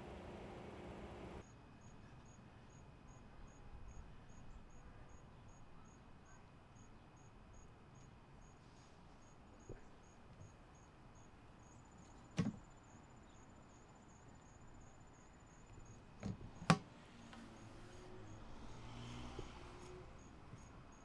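A cricket chirping steadily at a high pitch, about two to three chirps a second, over quiet ambience. A low hum cuts off after about a second and a half, and a few sharp knocks come around the middle and, as two in quick succession, about three-quarters through.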